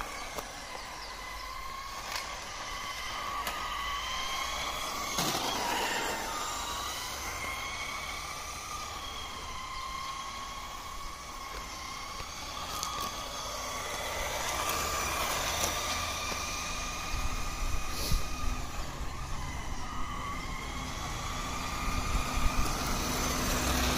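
Electric drive motor of a 1:10 scale Artin Nissan 350Z RC drift car whining as the car is driven around, its pitch rising and falling with the throttle, over a low rumble. The car runs on a 9.6 V Ni-Cd pack that the driver thinks is running a bit low.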